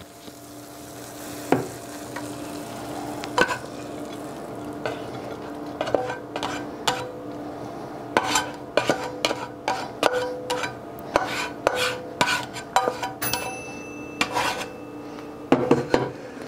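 A black spatula scraping and tapping a coated skillet as cooked ground beef is scooped out onto a plate, over a steady low hum. The scrapes and knocks are sparse at first and come thick and fast in the second half.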